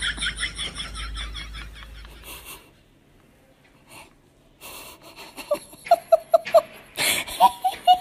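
Rapid, high-pitched wheezy laughter in quick pulses, then after a brief pause, louder laughing in short even 'ha-ha-ha' bursts.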